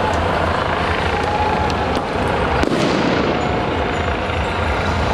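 Loud riot din: steady outdoor noise, with a few sharp cracks and one louder bang about two and a half seconds in, typical of firecrackers or police grenade launches.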